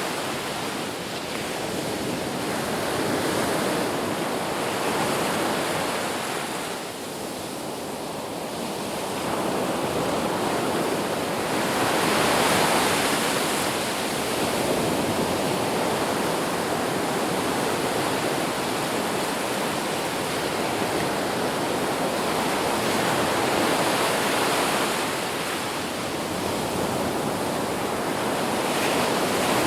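Ocean surf washing on a beach: a steady rush of water that slowly swells and ebbs, loudest about twelve seconds in.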